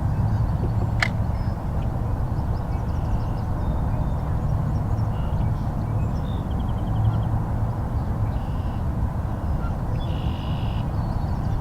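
Steady low wind and water noise on an open-water outdoor microphone, with faint bird calls several times over it and one sharp click about a second in.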